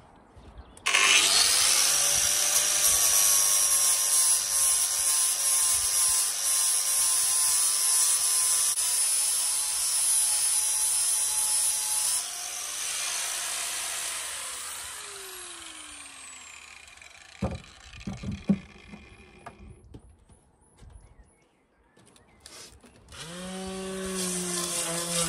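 Corded angle grinder starting about a second in and grinding down a protruding seam on the narrowboat's steel side for about eleven seconds. It is then switched off and winds down with a falling whine. A few knocks follow, and a steady motor-like hum starts near the end.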